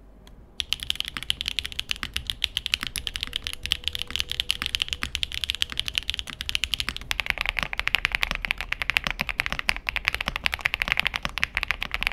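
Fast typing on mechanical keyboards as a sound comparison. First a clacky-sounding board with bright, sharp keystrokes. About seven seconds in, it switches to an iLovbee B87 with a thocky, somewhat poppy sound.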